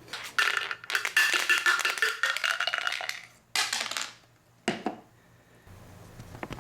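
Several dice being shaken and rolled: a long clatter lasting about three seconds, a shorter burst of rattling a little later, then a single click as a die settles.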